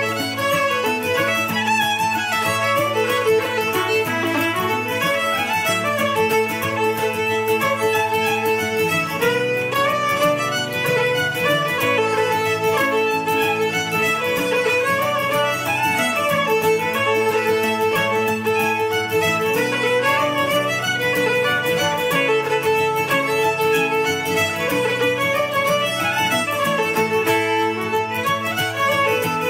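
Two fiddles playing a brisk Irish reel together, the bowed melody running in quick even notes over a plucked-string chord backing.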